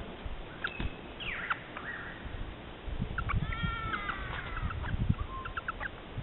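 Wild birds calling: short chirps and gliding notes, then, about three seconds in, a longer harsh call with several layered tones lasting over a second, followed by more short chirps, over a low rumble.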